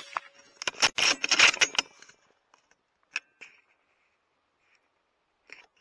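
The tail of a rifle shot at the very start, then the bolt of a custom .308 Win bolt-action rifle being worked: a quick run of loud metallic clacks about a second in, and single clicks, one briefly ringing, around three seconds and near the end.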